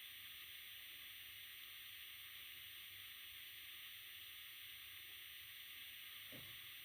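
Faint steady hiss with thin, steady high-pitched whines, and one brief soft low sound about six seconds in.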